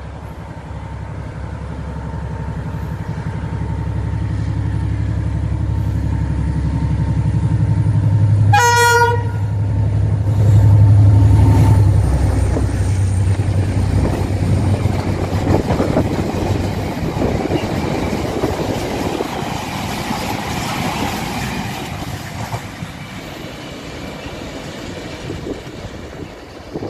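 Diesel freight train approaching and passing: the locomotive's engine drone grows louder, it sounds one short horn blast about eight and a half seconds in, then the loaded wagons roll past with rail noise that fades as the train draws away.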